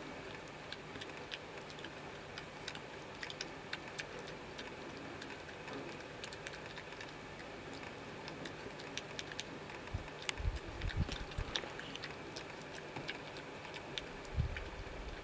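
A badger munching pellets at a feeding table: a steady run of small crunching clicks as it chews. A few louder low thuds come about two-thirds of the way in and again near the end.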